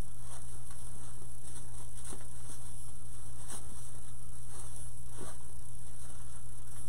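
Ribbon rustling in short irregular spurts as the loops of a bow are fluffed out by hand, over a steady low hum and hiss.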